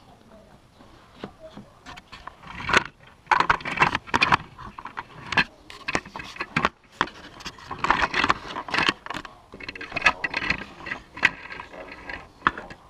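Close handling noise of plastic Lego pieces: quick scrapes, clicks and rattles in irregular bursts, starting about two seconds in.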